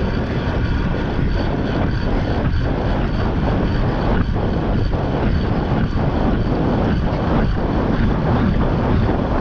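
Wind rushing over the onboard camera's microphone, with the hum of a track bike's tyres on the wooden velodrome boards, as the bike is ridden flat out. A faint, regular tick about three times a second runs through it.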